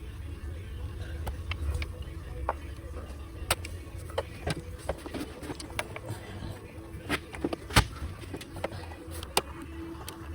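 Scattered sharp clicks and clinks of tools and parts being handled in an engine bay, the loudest a little before 8 seconds in, over a steady low hum.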